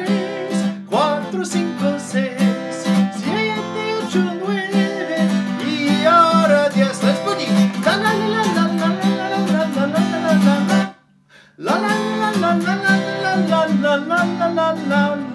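Acoustic guitar strummed in a quick rhythm with a man singing along. The playing stops briefly about eleven seconds in, then starts again.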